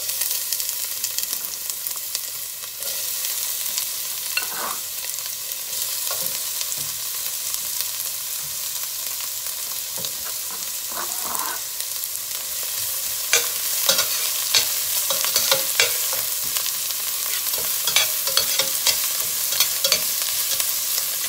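Diced onions sizzling steadily in hot olive oil in a stainless steel pot, the sizzle starting suddenly as they hit the oil. A metal slotted turner scrapes and clicks against the pot as they are stirred, the clicks coming more often in the second half.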